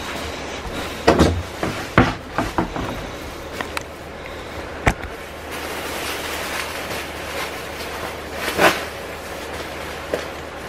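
Scattered household knocks and bumps over a steady background hiss: short sharp knocks about one, two and five seconds in, and a longer, louder clatter near the end.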